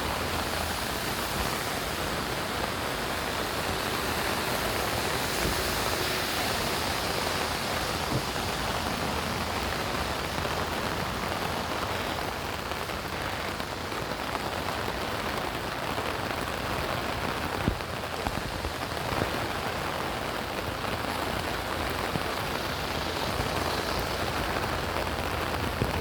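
Steady rain falling and hitting surfaces, with a couple of brief sharper taps a little past halfway.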